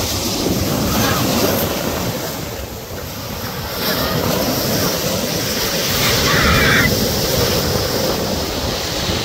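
Ocean waves breaking and washing through the shallows as a continuous, heavy, low rushing noise, loudest about six to seven seconds in.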